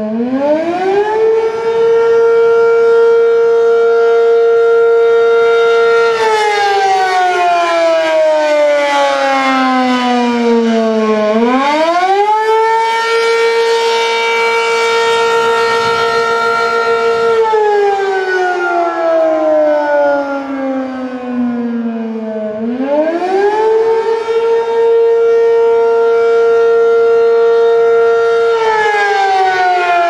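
ACA P-15 rotating outdoor warning siren sounding the attack signal. Its pitch climbs quickly, holds steady for about five seconds, then slides slowly down, starting over about every eleven seconds, three times here.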